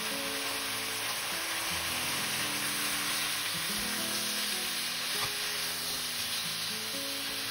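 Chicken pieces frying in a pan with onion and garlic, a steady sizzle as they are turned over with tongs. A gentle background melody plays under it.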